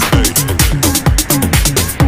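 Background electronic dance music with a steady, fast beat and repeating bass notes that fall in pitch.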